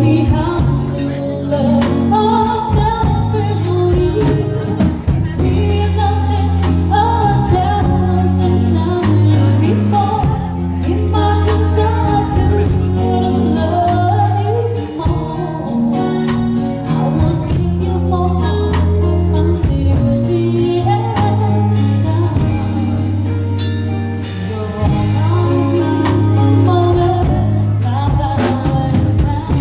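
A woman singing a song into a microphone with a live band backing her: steady bass notes and regular drum hits under the vocal line.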